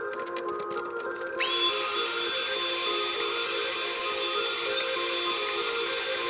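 Shop vacuum switched on about a second and a half in: the motor whine glides up and settles into a steady rushing suction as the hose cleans up debris along the base of the wall. Background music plays throughout.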